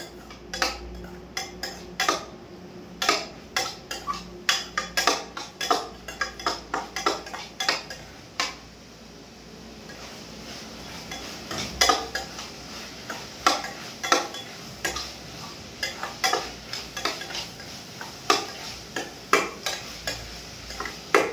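Metal spoon stirring food in a steel pan, scraping and clinking against the pan several times a second in an irregular rhythm, with a short pause about nine seconds in before the stirring resumes.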